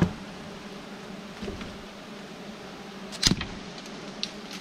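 Giant honey bees buzzing as a steady low hum, with a sharp knock a little past three seconds in and a fainter tick near the end.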